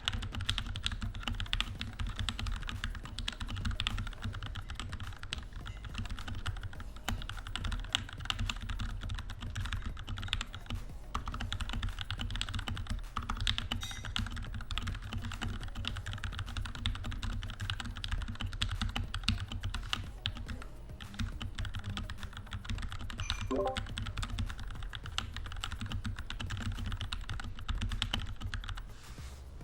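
Typing on a Tecware B68 mechanical keyboard fitted with Gateron Milky Yellow linear switches, lubed with Krytox 205 and filmed: a steady, rapid run of keystrokes over a low hum, trailing off near the end.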